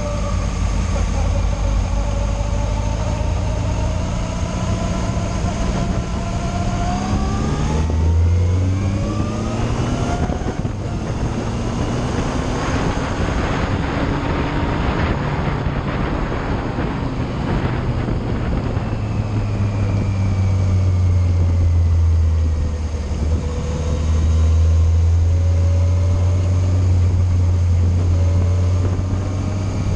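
Yamaha Fazer motorcycle engine climbing in pitch as it accelerates, then a stretch of rushing wind noise while riding at speed, settling into a steady low engine drone in the second half.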